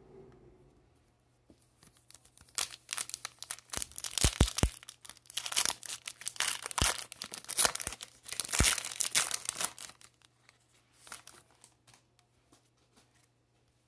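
Foil wrapper of an Upper Deck hockey card pack being torn open and crinkled: a run of sharp crackles lasting several seconds, then a few softer rustles as the cards are handled near the end.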